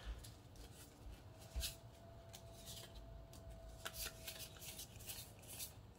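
Faint soft clicks and slides of Magic: The Gathering cards being flipped through by hand, one card after another.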